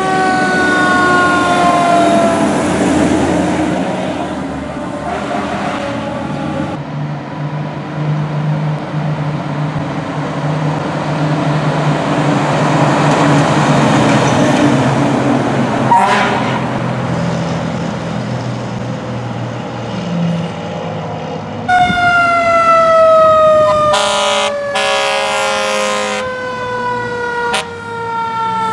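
Fire engines responding: a siren winding down slowly from a high pitch, diesel engines passing, then a second siren falling in pitch with two loud horn blasts near the end.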